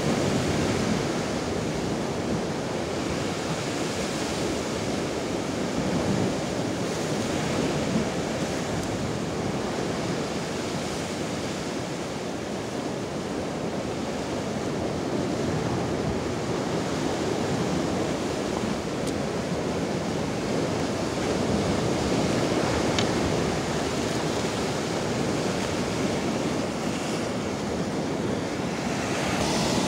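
Rough Black Sea surf breaking over and around shoreline rocks: a continuous rushing wash that swells and eases as the waves come in.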